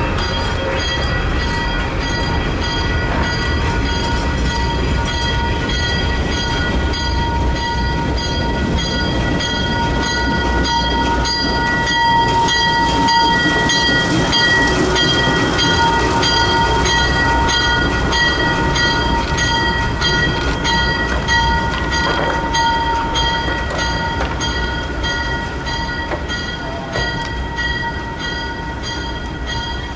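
ALCO diesel switcher locomotive running with a short train, a continuous low engine rumble that grows louder around the middle, with a steady high-pitched ringing tone throughout.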